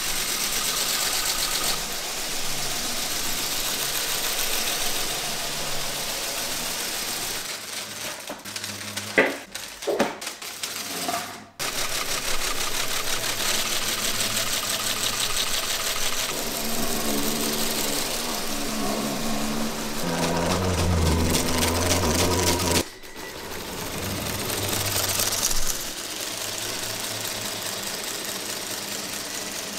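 Lego pneumatic engine running on compressed air, a fast, even mechanical rattle of its pistons and air exhaust driving the truck's gears. It breaks off briefly twice, about a third of the way in and again about three quarters in.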